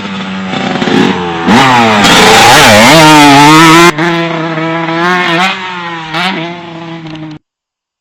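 A 125 cc dirt bike engine being ridden, revving up and down repeatedly as the throttle is worked. It is loudest about two seconds in, then cuts off suddenly near the end.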